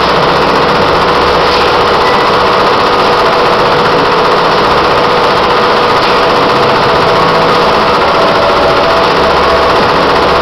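SWF multi-needle industrial embroidery machine stitching at speed, a steady, rapid mechanical chatter of the needle head.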